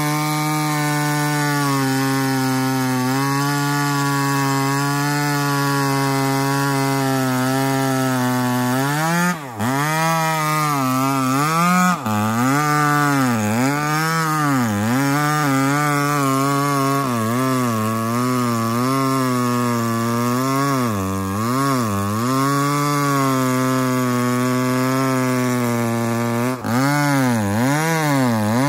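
Two-stroke chainsaw running hard while cutting trembesi (rain tree) wood. Its note is steady at first, then rises and falls over and over from about a third of the way in as the chain works under load. There are brief dips in sound about a third of the way in and again near the end.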